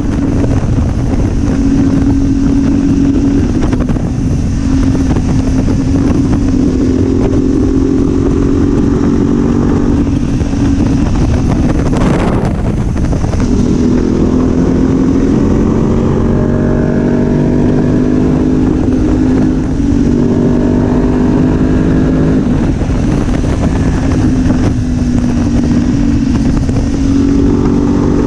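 2019 BMW F850GS Adventure's parallel-twin engine pulling under way, its pitch climbing and dropping again and again as the rider accelerates and shifts gears, over a steady rush of wind noise. A brief loud whoosh cuts across it about twelve seconds in.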